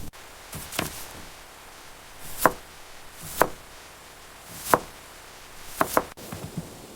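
A knife chopping on a wooden cutting board: separate sharp strokes about a second apart, with a couple of quick double strokes.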